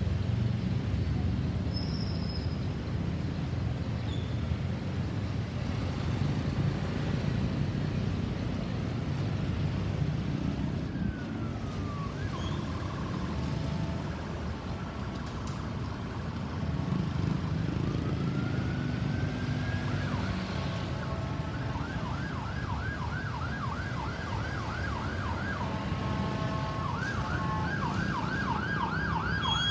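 Low road-traffic rumble with an ambulance siren coming on: a falling tone about halfway through, a slow rising wail, then from about two-thirds in a fast yelp sweeping up and down two or three times a second, with a short break near the end.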